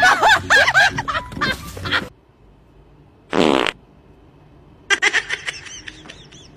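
A short, buzzing fart sound about halfway through. It comes between bursts of high, wavering squeals in the first two seconds and again near the end.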